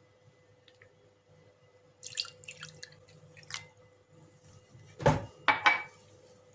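Kitchen handling sounds: a quick run of light clicks and taps, then three sharp knocks in quick succession near the end, over a faint steady hum.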